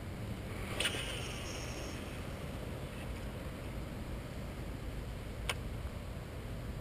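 Steady low wind rumble on the microphone, with a sharp click about a second in and another near the end.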